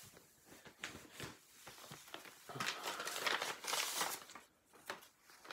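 Paper rustling and crinkling as a folded sheet of paper is opened out by hand: soft scattered rustles and clicks at first, then a louder stretch of crinkling from about halfway through, lasting over a second.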